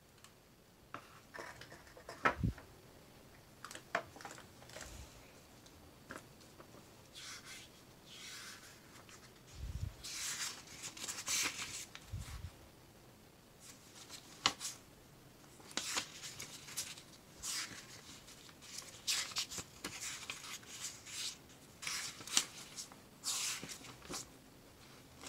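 Paper handling: the pages of a printed user manual being turned and rustled by gloved hands, in short, irregular swishes, with a few soft taps of cardboard packaging.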